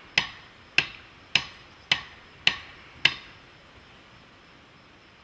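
A hammer striking metal on an anvil: six evenly spaced ringing blows, a little under two a second, that stop about three seconds in.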